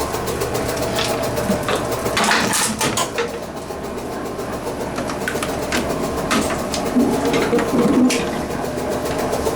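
Tomra Tx2 reverse vending machine humming steadily, with scattered knocks and clatter from a plastic bottle being fed and handled in it. The loudest knocks come about two and a half seconds in and again about eight seconds in.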